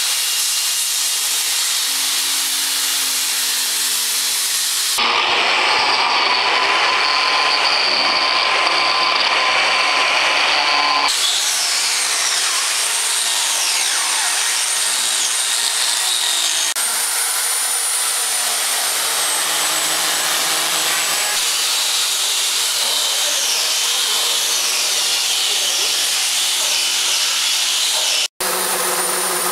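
Hand-held electric angle grinders and a disc sander carving and sanding wood, the motors whining steadily over a loud grinding hiss. The sound changes abruptly four times as one tool gives way to another.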